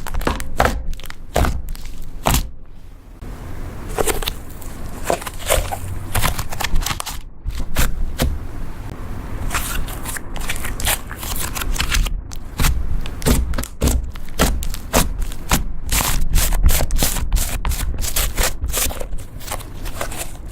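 Butter slime being kneaded and stretched by hand: a dense, irregular run of sticky clicks and crackling pops.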